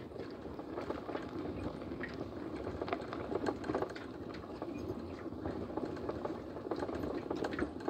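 Vehicle engine running steadily while driving a rough dirt track, with scattered knocks and rattles from the bumpy surface.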